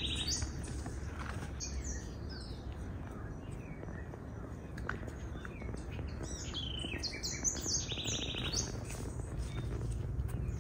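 Birds chirping and calling: scattered short, high chirps and a couple of brief buzzy trills over a steady low background rush of outdoor ambience.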